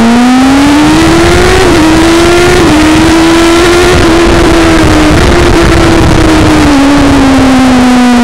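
BMW S1000RR inline-four with its muffler removed, running loud under way: the revs climb for about the first second and a half, hold fairly steady with a few brief dips, then fall away near the end as the throttle is eased.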